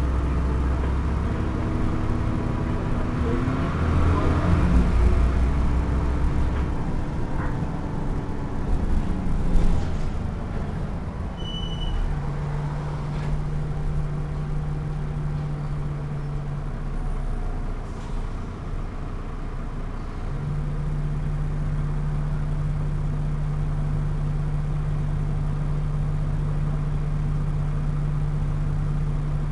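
Double-decker bus engine and drivetrain running, heard inside the upper deck; the engine note shifts during the first several seconds, then settles into a steady low drone. A sharp knock comes about ten seconds in, followed shortly by a brief high beep.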